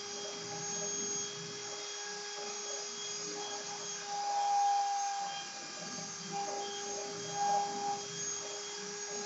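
CNC router running: a steady whine with a second, higher tone that starts and stops in uneven stretches as the machine's motors move it through the cut.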